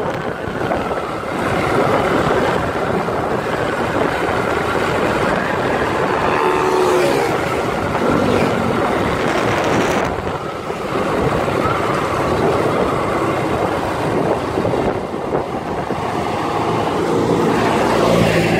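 Motorcycle being ridden, its engine running under steady wind and road noise.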